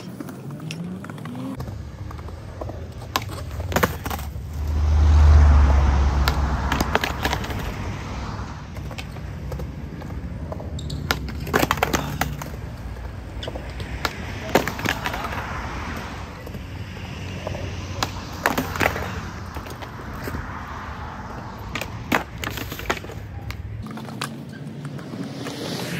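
Skateboards on a concrete skatepark: wheels rolling with a low rumble that swells loudest about five seconds in, and many sharp clacks of boards popping and hitting the concrete.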